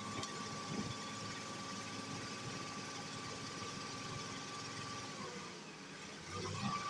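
Diesel engine of a Hitachi KH150 crawler crane running steadily, with a steady whine over it. The whine stops about five seconds in, and the sound swells briefly near the end.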